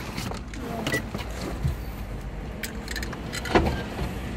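Low steady rumble inside a car cabin, with a few scattered clicks and a short knock about three and a half seconds in.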